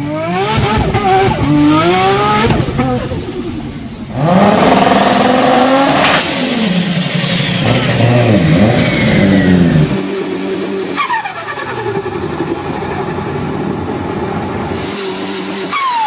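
Turbocharged car engines revving in a run of short clips, including a Nissan Skyline R34 GT-R's twin-turbo straight-six pulling away. A high turbo whistle rises with the revs and falls away each time the throttle shuts, several times over.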